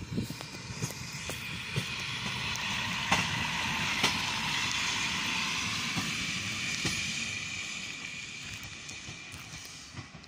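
A Czech Railways class 810-type single-car diesel railbus passes by. Its engine rumble and wheel hiss swell to a peak a few seconds in, then fade as it moves away. Wheels click sharply over rail joints and points as it goes.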